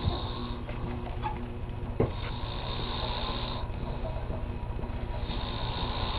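A man snoring in his sleep, rasping breaths that swell and fade about once every three seconds. A single short click about two seconds in.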